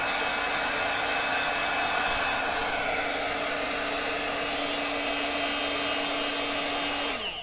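Handheld craft heat tool (embossing heat gun) running steadily, a fan blowing with a constant hum. It is switched off near the end and its fan winds down.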